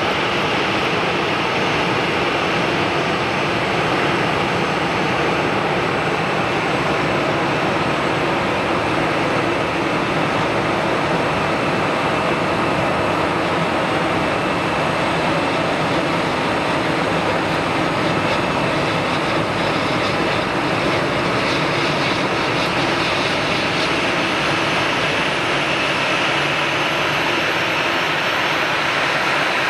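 Boeing 737-800's CFM56-7B jet engines running at taxi idle as the airliner taxis, a steady loud jet whine and rush. A faint high-pitched tone rises over the last few seconds.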